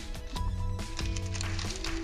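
Background music: a melody of held notes over a bass line.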